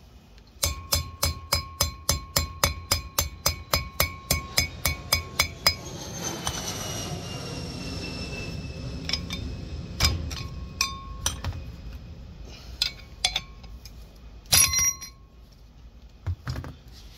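Metal-on-metal hammer strikes seating a bearing race in a cast-iron brake rotor hub: a fast run of about twenty ringing blows, about four a second. The rotor goes on ringing for a few seconds afterwards, then come scattered clinks and one sharp metal knock.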